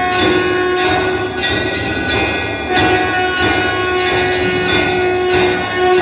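Hindu temple bells ringing, struck in a steady rhythm about one and a half times a second, their tones ringing on between strikes.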